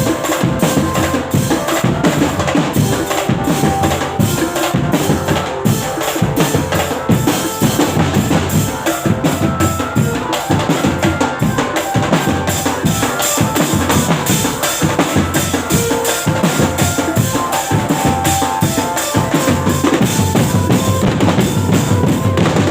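Live band music with a fast, driving drum beat and held melodic notes, stopping abruptly at the end.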